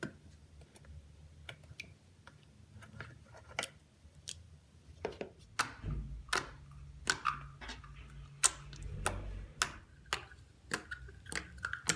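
Clear slime being stretched and pressed by hand, giving irregular sharp bubble pops and clicks.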